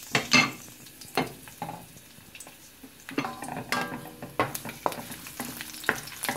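Garlic cloves sizzling in hot olive oil in a metal frying pan, with a loud clatter right at the start. From about three seconds in a spatula stirs them, scraping and knocking against the pan.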